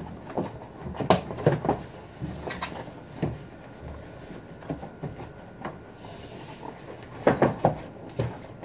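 Cardboard shipping box being handled: irregular knocks and scrapes as its flaps are bent and pressed in, loudest in a cluster about a second in and again near the end.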